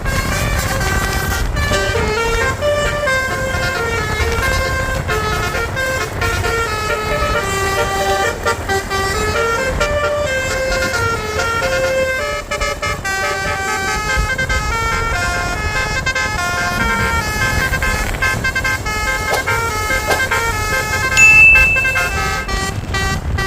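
Basuri multi-tone 'telolet' bus air horn playing a tune in quick stepped notes, held on continuously over the low rumble of the bus. Near the end a brief high, piercing tone is the loudest sound.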